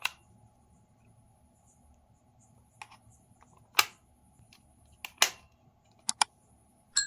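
Sharp plastic clicks and taps at irregular intervals, as of small gear or its case being handled, two of them in quick succession near the end. They are followed right at the end by a short electronic beep.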